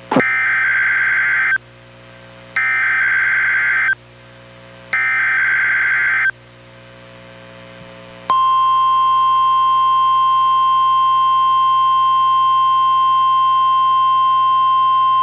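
NOAA Weather Radio Required Weekly Test signal through a Reecom R-1630 weather radio's speaker. It opens with three buzzy bursts of SAME digital header data, each about a second and a half long with a second of pause between them. About eight seconds in, the steady 1050 Hz warning alarm tone starts and holds.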